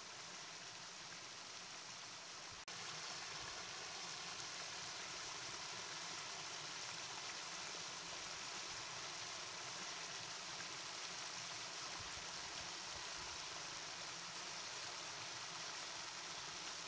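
Shallow moorland stream running over stones in a narrow stone-lined channel: a steady rush of water, stepping up a little louder about three seconds in, where the water tumbles over a small drop.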